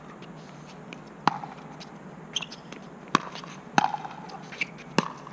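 Pickleball rally: paddles striking the hollow plastic ball with four sharp pops, one to two seconds apart, with a few fainter ticks between them.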